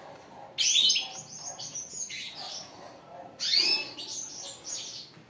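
European goldfinch twittering in three short bursts of quick, high chirps, the loudest about half a second in.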